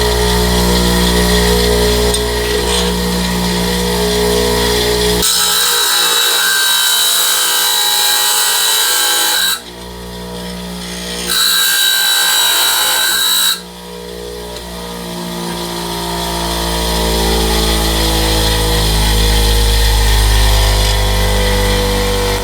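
Bench grinder with a thin cutoff wheel running with a steady motor hum, then cutting into sheet metal: a harsh, high grinding screech starts suddenly about five seconds in and lasts about four seconds. After a short break it comes again for about two seconds. The motor hum then returns and grows louder toward the end.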